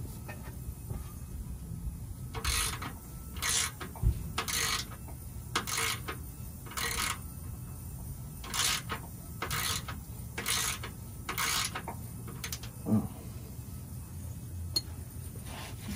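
Hand ratchet wrench clicking in about nine short strokes, roughly one a second, loosening a bolt, then stopping about twelve seconds in. A sharp knock comes about four seconds in.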